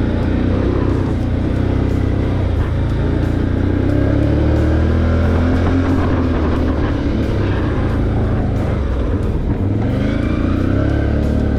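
Can-Am ATV engine running on a trail ride, its pitch rising and falling several times as the throttle comes on and off.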